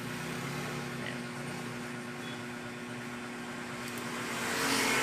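Steady mechanical hum with a low droning tone, swelling into a louder rushing noise near the end.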